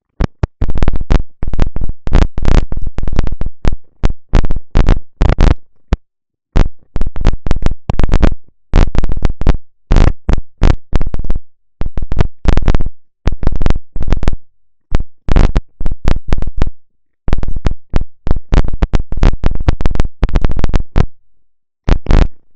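Loud crackling static from a faulty microphone: irregular, clipped bursts of noise that cut out to silence several times.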